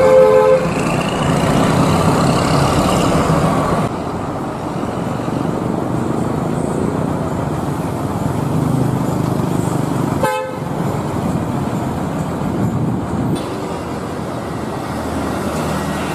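Large coach buses' diesel engines running with traffic noise, and a bus horn sounding in the first few seconds.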